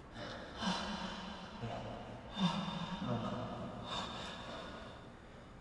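Two men moaning and breathing hard during sex: long voiced moans with breathy gasps, one voice higher and one lower, taking turns, dying away near the end.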